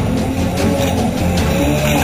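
Background music with a steady beat, low bass notes and a wavering melody line above them.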